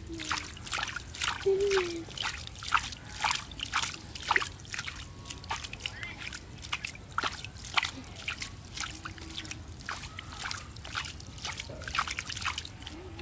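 A hand scooping and flinging water out of the shallow bottom of a boat, a quick irregular series of splashes and sloshes with water trickling back over the side.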